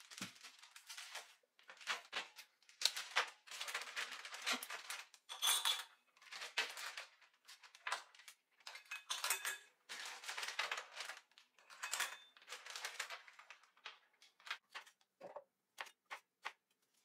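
Plastic bags crinkling and rustling in bursts as groceries are unpacked and handled, with plastic food containers handled on the counter. Near the end, a kitchen knife chopping a red chili on a cutting board in quick, even taps.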